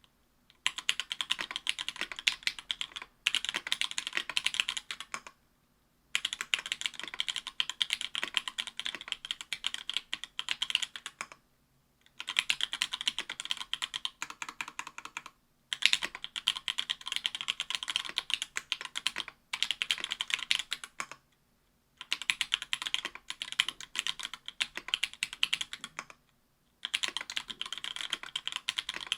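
Typing on a mechanical keyboard with stock, unlubed Link Studio Jungle 62g linear switches, in an Octagon V3 with an aluminium plate and GMK keycaps. Fast runs of keystrokes are broken by short pauses every few seconds.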